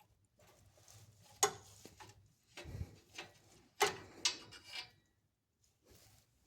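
A ratchet and oxygen-sensor socket working the downstream oxygen sensor: a string of sharp metal clicks and knocks at uneven intervals, the two loudest about a second and a half and four seconds in.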